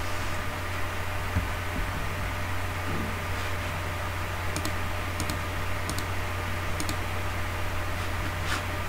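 Several short computer mouse and keyboard clicks in the second half, over a steady background hum and hiss.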